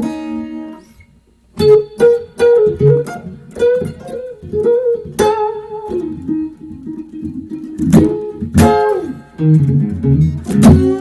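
Electric guitar, a '60 Stratocaster played through a Dumble-style Steel String Singer into a Fender DeVille 4x10 combo amp. It plays loud bluesy phrases of picked single notes and double-stops, with a short pause about a second in and note bends and slides in the later phrases.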